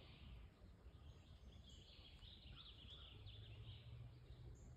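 Near silence, with faint, scattered bird chirps.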